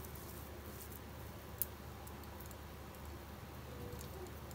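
Faint handling of grated raw mango on a plate by hand: a low steady room hum with one sharp click about a second and a half in.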